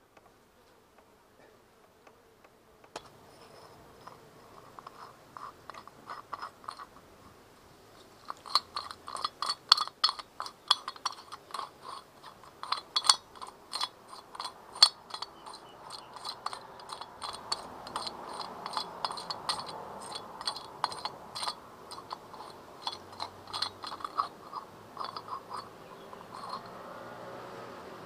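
Metal crunching and clicking as the float bowl of a British Seagull outboard's carburettor is twisted and worked off by hand. It starts faintly a few seconds in, then comes thick and fast, many small gritty clicks a second, through the middle.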